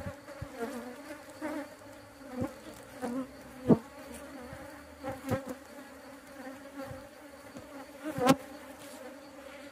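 Honey bees humming steadily around a hive box, with single bees buzzing close past the microphone several times, loudest about four and eight seconds in.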